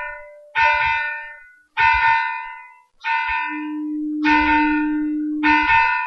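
A church bell tolling at an even, slow pace, about one strike every 1.2 seconds, five strikes in all. Each strike rings out and fades before the next. A low steady tone sounds beneath the strikes in the middle.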